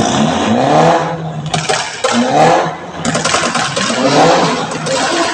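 BMW M car's engine revved three times in quick blips, each climbing and falling back in pitch, with the exhaust loud and rasping.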